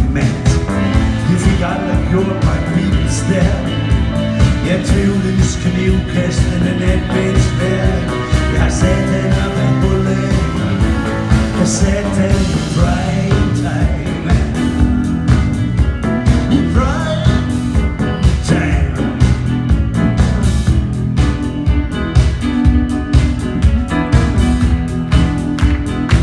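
Live rock band playing an instrumental passage, electric guitars over a steady beat.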